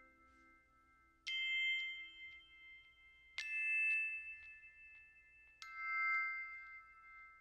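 Background music: three bell-like struck notes, about two seconds apart, each ringing out and fading.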